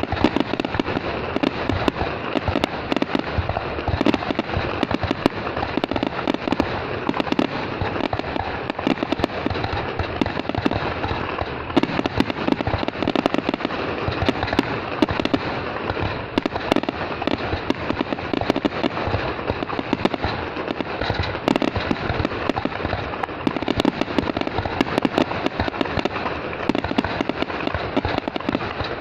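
New Year's Eve fireworks going off all around in a dense, continuous crackle of rapid pops and bangs that never lets up.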